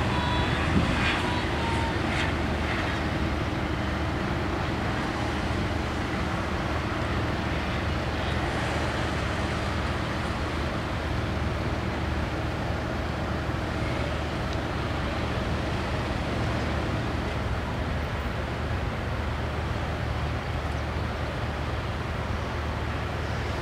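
A steady, unchanging low engine drone with a faint hiss over it.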